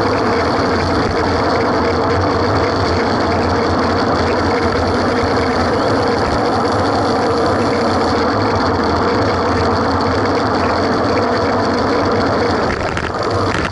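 Steady wind rush and tyre-on-asphalt noise on a bicycle-mounted action camera's microphone while riding in a road-race group, easing briefly near the end.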